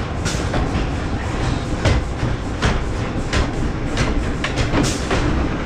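Great Coasters International wooden roller coaster train rolling slowly through the station, wheels rumbling and clacking irregularly over the track.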